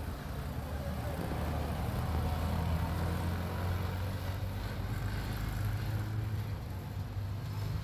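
A motor engine running with a low, steady hum.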